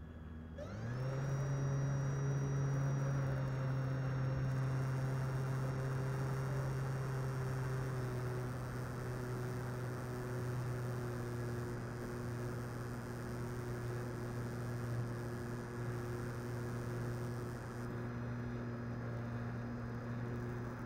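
Radio-controlled Air Tractor model plane's motor and propeller, picked up by the onboard camera: about half a second in it throttles up quickly, then runs at a steady high pitch with a rush of airflow.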